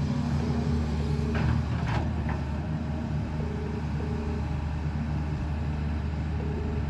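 JCB excavator's diesel engine running steadily at an even pitch, with a few short knocks about one and a half to two seconds in.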